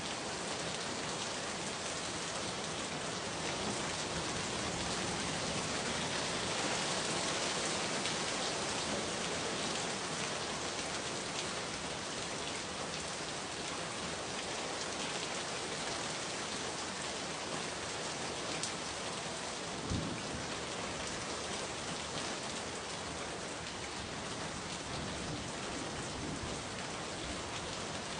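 Steady rain falling, an even hiss of drops, with a single sharper tap about twenty seconds in.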